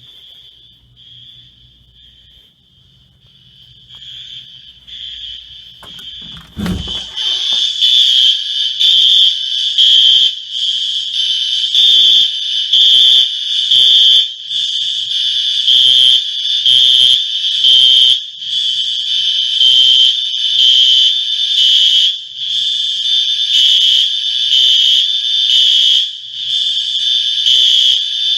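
Apartment building fire alarm sounding a high-pitched tone that pulses about once a second, which the resident takes for a likely false alarm. It is faint at first; a low thump comes about six and a half seconds in, and after it the alarm is much louder.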